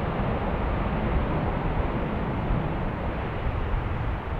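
Four turbofan jet engines of a Boeing C-17 Globemaster III running as it rolls across the airfield, a steady rushing noise, with wind rumbling on the microphone.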